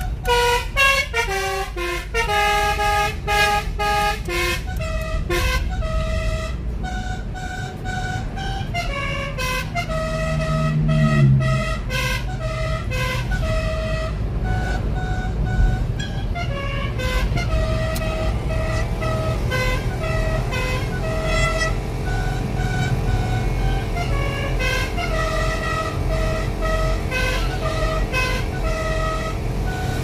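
Multi-trumpet 'basuri' telolet horn, a set of twelve trumpets, playing a tune of quick stepped notes, the notes later held longer and overlapping into chords, heard from inside the moving car over steady road and engine rumble. A lower tone slides down about eleven seconds in.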